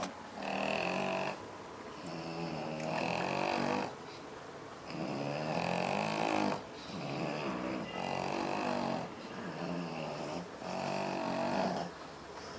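Sleeping pets snoring, a long snore about every two seconds, around six in a row.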